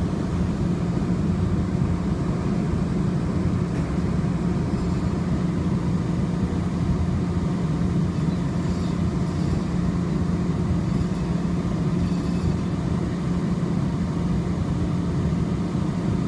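A Muni Metro light-rail car under way, heard from inside the cabin: a steady low hum over even running noise, unchanging throughout.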